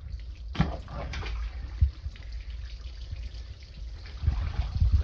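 Water running and trickling out of a slit in a vinyl waterbed mattress, with a few sharp knocks and bumps against the phone, about half a second in, near two seconds and again near the end.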